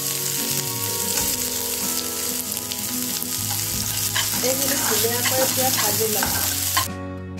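Chopped onion sizzling in hot oil in a kadai, with a few light clicks of stirring. The sizzle drops away suddenly near the end.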